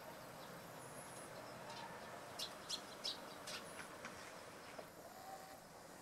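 Eurasian tree sparrows chirping faintly: four short, sharp chirps in quick succession about halfway through, with a couple of thin, high calls, over a steady faint background hiss.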